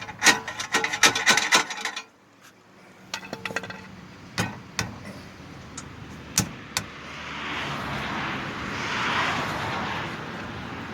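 Hand tools on the Camaro's axle job: rapid ratchet-like clicking for about two seconds, then a few separate metallic clinks and knocks. From about halfway on, the noise of passing traffic swells and fades.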